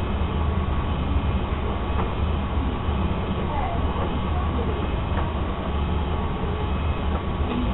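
Washing machine running with a steady low rumble.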